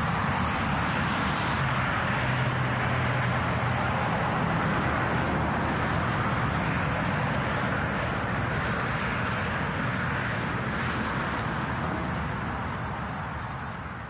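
Distant motorway traffic: a steady rushing and rumbling roar with no break in it. A low droning tone stands out for a few seconds about two seconds in, and the roar fades out near the end.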